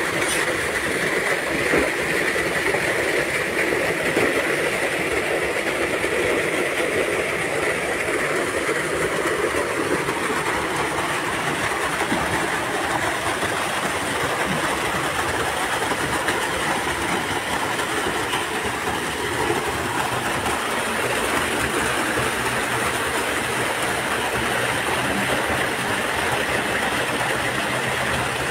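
Water of a small rocky stream rushing steadily over a little fall between boulders, an even unbroken rush.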